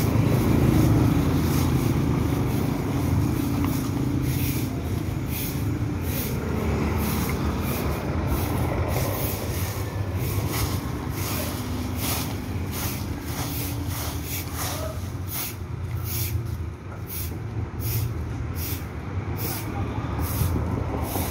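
Stick broom (walis tingting) sweeping dry leaves on pavement in repeated swishes, the strokes coming faster in the second half. Under it, the steady rumble of passing street traffic, with an engine tone from a vehicle going by in the first few seconds.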